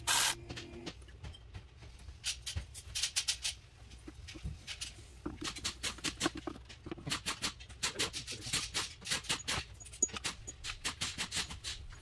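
Hand tools and engine-bay parts clicking and clinking during reassembly, in irregular quick runs of sharp clicks, with a short louder noise right at the start.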